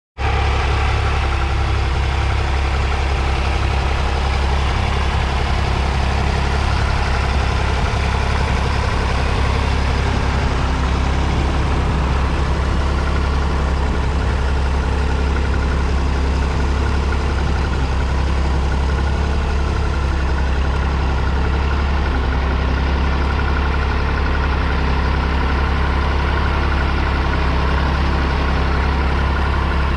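1959 Fordson Dexta's 2.4-litre three-cylinder diesel engine running steadily at an even speed, with a strong low throb.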